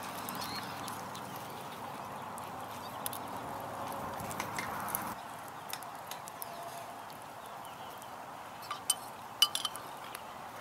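Wood fire crackling and hissing with scattered pops, then, near the end, a few sharp clinks of a metal spoon against a small bowl.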